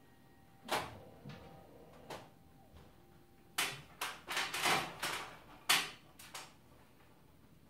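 Fingertips dabbing and scuffing against a canvas: short scraping sounds, a few spread out and then a quick run of them about halfway through.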